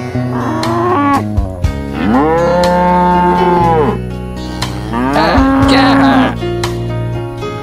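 Cow mooing twice, a long moo of about two seconds and then a shorter one about a second later, over background music.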